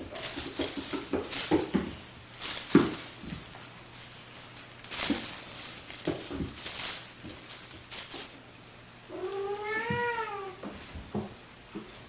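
A crinkly foil-strip cat wand toy rustling in quick shakes as cats bat and leap at it, with light thumps on a wooden floor. About nine seconds in, a cat gives one long meow that rises and then falls.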